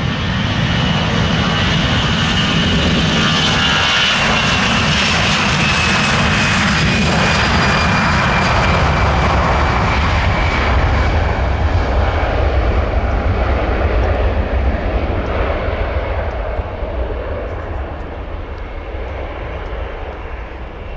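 Airbus A320's twin jet engines at takeoff thrust during the takeoff roll. A high whine slides down in pitch as the airliner passes, a deep rumble builds behind it, and the whole sound fades steadily as it heads away and lifts off.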